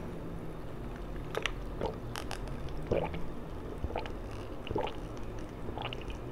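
A person drinking from a glass of iced drink: a series of short gulps and swallows, about one a second.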